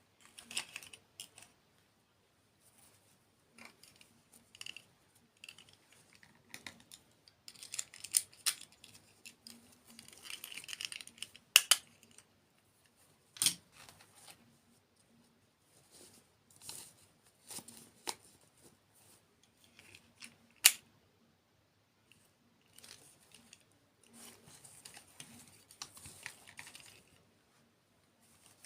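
Close-miked eating sounds: crisp bites and chewing in irregular bursts, with several sharp clicks standing out.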